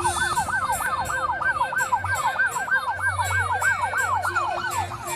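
Electronic police-style siren on a fast yelp, two layered tones rising and falling about six times a second, slowing and dropping in pitch just before the end.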